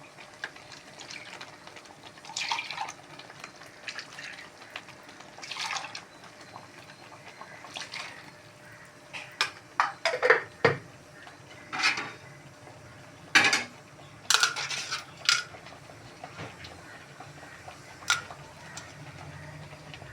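A metal ladle scraping and knocking against a kadai in irregular strokes while ground onion and tomato paste is stirred and sautéed in oil.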